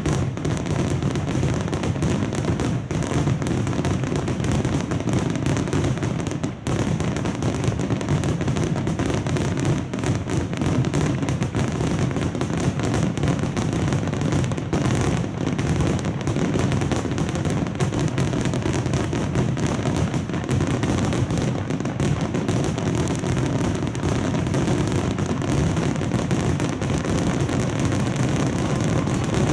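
Fireworks finale barrage: wide starmine shells fired in rapid succession, the bursts blending into one continuous din of booms and crackle with no pause.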